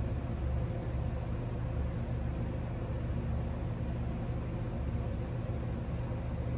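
Steady low mechanical hum, like a motor or fan running, with a faint steady tone held at one pitch above it.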